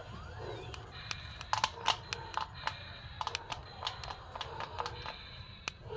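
Irregular light clicks and taps over a low steady hum.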